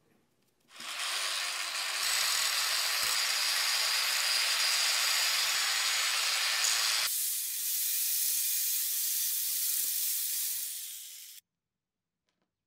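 A power tool working on metal: a steady, harsh noise with a faint high whine. It thins out about seven seconds in and cuts off abruptly a second or so before the end.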